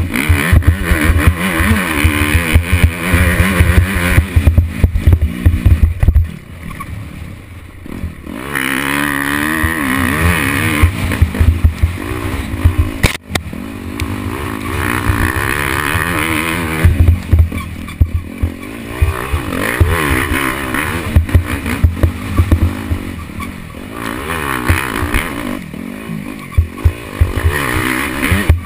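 Off-road racing dirt bike's engine heard close up, revving hard and falling back again and again as the throttle opens and closes along the trail, with low buffeting and clattering knocks from the rough ground.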